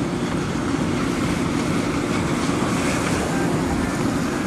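Steady low rumble of a car rolling along, heard from inside the cabin, with no breaks or sudden sounds.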